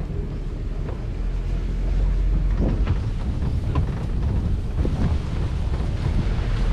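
Wind buffeting the microphone: a steady low rumble that gets louder about two seconds in, with a few short faint sounds in the middle.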